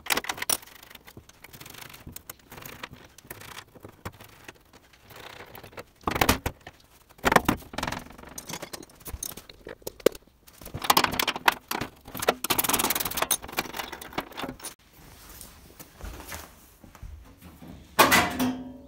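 Irregular clicks, rattles and metal clatter of hand tools and a loose sheet-metal panel being worked free at a car's inner fender. The clatter comes in separate bursts, the loudest near the end.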